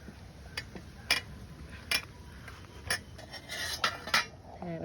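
Utensils and dishes being handled: a handful of sharp clicks, roughly one a second, and a short scrape of metal against a plate a little after three seconds in.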